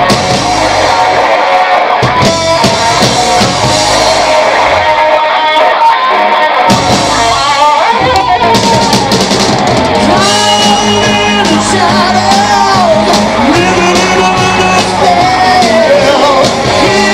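Live rock band playing loud, with distorted electric guitars and a drum kit; lead vocals come in over the band in the second half.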